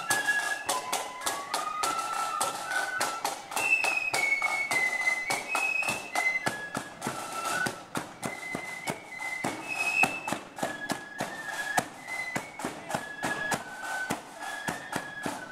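Marching flute band playing a tune: flutes carry a stepping high melody over dense, rapid drumming.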